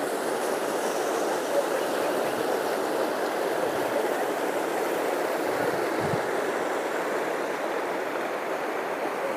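Steady rush of running water from a garden water cascade.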